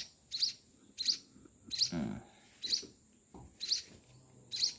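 A young munia chick chirping, short high peeps repeated about once a second.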